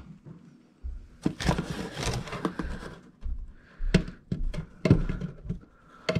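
Cardboard box rustling and a hard plastic part clicking and knocking as it is handled in the box. There are several sharp knocks among the rustling, starting about a second in.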